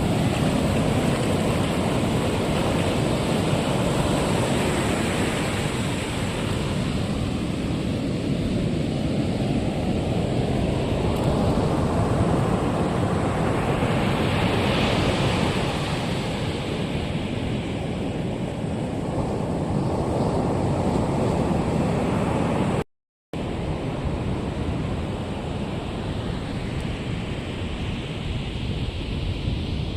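Ocean surf breaking on a beach, with wind buffeting the microphone; the wash swells and fades in slow waves. The sound cuts out completely for about half a second roughly two-thirds of the way through.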